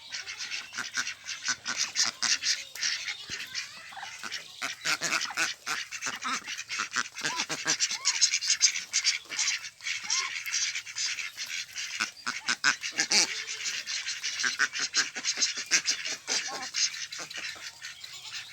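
A large flock of ducks calling over one another in a dense, continuous chatter.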